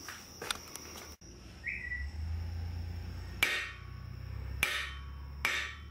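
Three sharp metal-on-metal strikes, each ringing briefly: the hardened blade of a camp knife forged from a rasp whacked against the jaw of a cast-iron Craftsman bench vise, a steel-on-steel test of whether the quenched edge is hard enough to bite into the vise.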